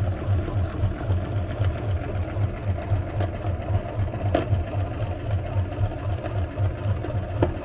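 Electric meat grinder motor running steadily, a low hum that pulses in an even rhythm, with a couple of faint clicks.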